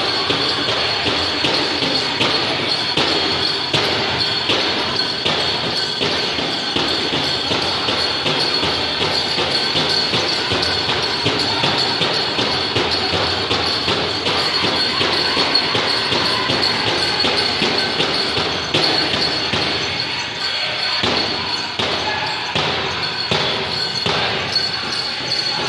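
Pow wow drum group playing a grass dance song: a big drum struck in a steady beat under the singers, with the jingle of dancers' bells, in a large hall.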